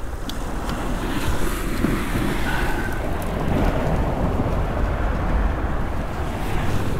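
Wind buffeting the microphone: a steady, low rumbling noise, with a few small clicks near the start.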